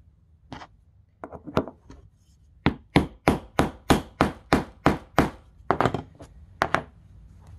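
A hammer striking a grommet-setting tool to set a metal grommet through fabric. A few light knocks come first, then a steady run of sharp blows, about three a second, and a few more blows after a short pause.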